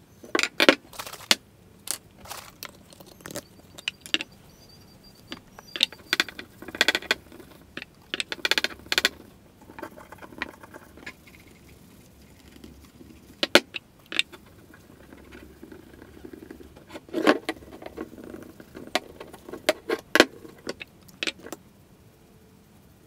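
Handling noise at a wooden workbench: irregular sharp clicks and light knocks of a metal axe head and a metal can being picked up and set down. They come in short clusters spread over about twenty seconds.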